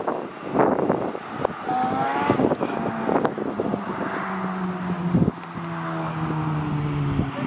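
Airbus A321-211's CFM56 jet engines running at taxi power: a steady whine over a low hum, with a rising tone about two seconds in. Wind gusts on the microphone are loudest near the start.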